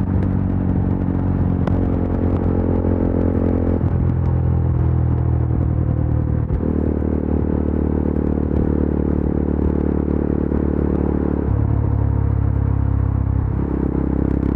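Yezdi Adventure's single-cylinder engine and exhaust running steadily at highway cruise, heard from the rider's helmet. Its note changes abruptly a few times, about four, six and a half and eleven and a half seconds in.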